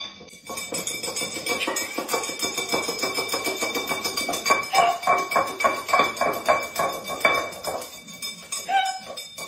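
A dog pushing and banging its empty ceramic food bowl across a hard wood-look floor, a run of clattering knocks and scrapes that come about three or four a second in the middle. The dog is protesting that its breakfast is late.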